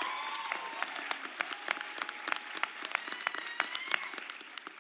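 Audience applauding, dense irregular clapping that thins out toward the end.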